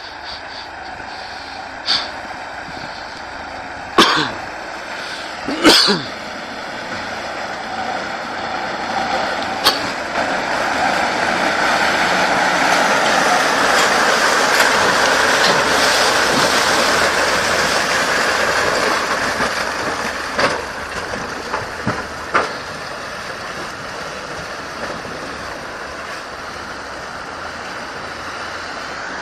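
Ural 4320 off-road truck's diesel engine and tyres in mud as it drives past close by, growing louder to a peak about halfway through and then fading as it moves away. A few short sharp sounds stand out in the first ten seconds and again about twenty seconds in.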